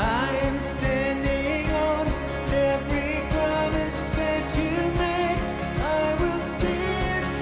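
A man singing a contemporary worship song, accompanying himself on a strummed acoustic guitar.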